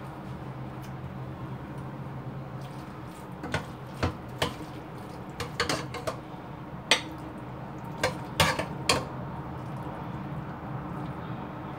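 Kitchen dishes and utensils clinking and knocking: about a dozen sharp clinks in the middle stretch, over a steady low hum.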